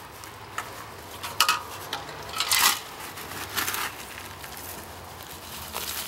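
Dirt scooped out of a plastic bucket with a trapper's sifter: a handful of short gritty scrapes and rustles about a second apart, with dirt starting to sift down near the end.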